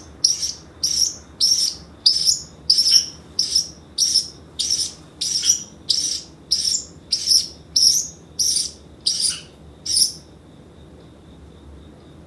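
Pacific parrotlet calling over and over in short, sharp, high-pitched chirps, about two a second, loud enough to pass for an alarm clock; the calling stops near the end.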